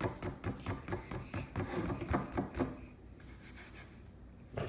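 Paintbrush dabbing and scrubbing paint onto a stretched canvas: quick rubbing strokes, several a second, that thin out about three seconds in, then one sharper knock near the end.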